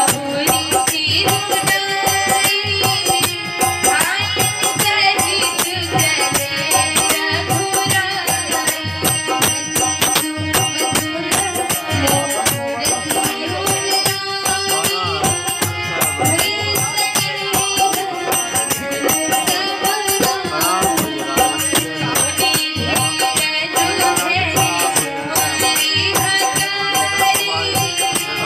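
Devotional bhajan music: a harmonium holds steady chords while a hand-shaken rattle keeps up a fast, continuous beat. A woman's voice sings gliding phrases over it, clearly around four seconds in and again near the end.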